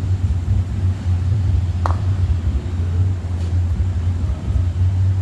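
A steady low hum, with a single short metallic clink about two seconds in.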